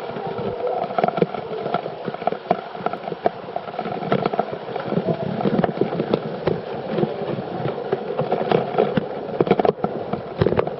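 Water splashing and running in a limestone cave, a dense jumble of small irregular splashes over a steady rush of falling water.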